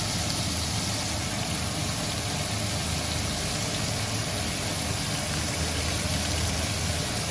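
Steady hum and hiss at the stove while onion, celery and carrots sauté in a stainless steel pot, with no clear crackle standing out.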